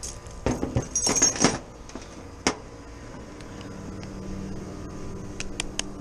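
Metal tools and gear clinking and rattling as they are handled, then a single sharp click, with a few more light clicks near the end. A low steady hum comes in about halfway through.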